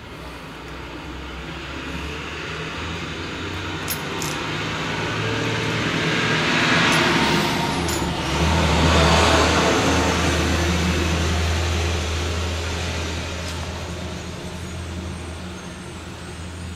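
A motor vehicle passing by: its engine noise, with a low steady hum under it, slowly swells to its loudest about halfway through and then fades away. A couple of faint clicks come through along with it.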